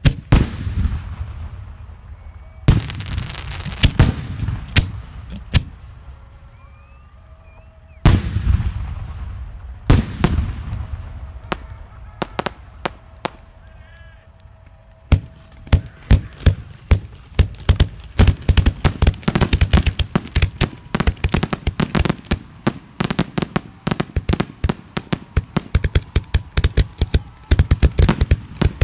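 Aerial firework shells bursting: several big booms a few seconds apart, each echoing and fading away. About halfway through, a rapid, dense barrage of reports begins and keeps getting busier, typical of a display's finale of small shells fired in quick succession.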